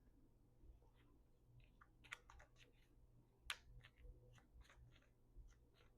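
Near silence with faint, scattered clicks and taps of tarot cards being handled, the sharpest about halfway through.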